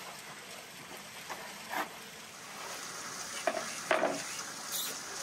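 Knife cutting raw beef tripe on a wooden board, with a few short cuts and taps against a steady hiss.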